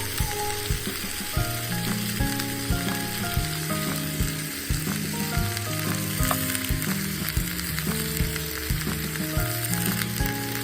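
Background music with a steady beat, over a steady sizzling hiss of cooking on the fire.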